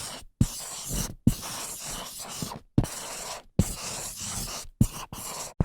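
Dry-erase marker writing on a whiteboard: about seven scratchy strokes of varying length, each beginning with a sharp tap of the tip, separated by brief pauses.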